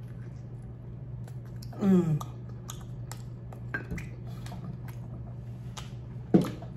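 Close-up eating sounds: chewing and biting meat off a barbecue rib, with wet mouth noises and many small clicks. About two seconds in comes a short vocal sound falling in pitch, and near the end a sharp click as the voice starts again.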